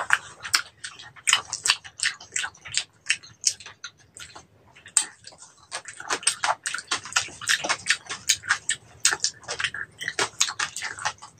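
Close-miked chewing of crispy roast pork head: a fast, irregular run of crackling crunches, thinning out briefly in the middle.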